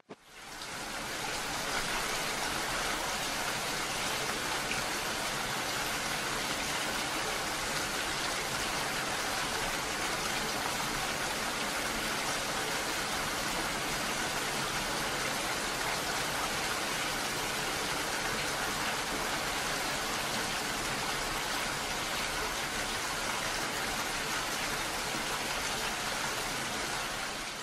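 Heavy rain falling steadily, a dense even hiss that rises in over the first second.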